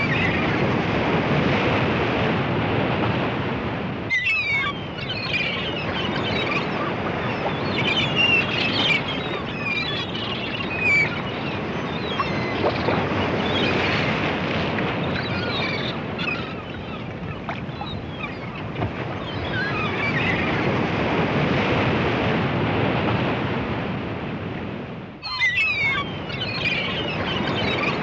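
Ocean waves washing on the shore in slow swells, with gulls calling in short cries above them, in bunches a few seconds apart.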